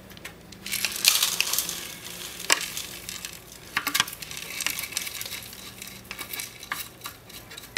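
Rolled oats and dust being shaken and tipped out of the ILIFE V7S robot vacuum's plastic dust bin into a metal bowl: a dry rustling pour, with several sharp taps and clicks of the bin against the bowl.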